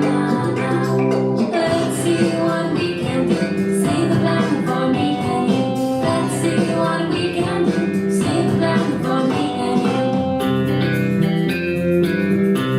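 Song with singing over guitar, played loudly for a dance, a song about saving the Earth.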